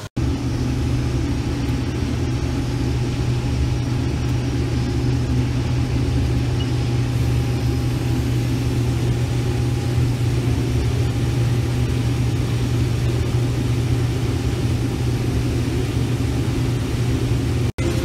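Case IH Axial-Flow combine running steadily under harvest load while it unloads corn into a grain cart. It is a loud, even low drone with a faint whine above it.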